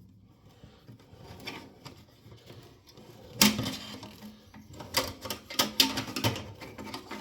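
Parts of a downdraft range vent being handled and fitted into place: a run of irregular light clicks and knocks that starts about three seconds in.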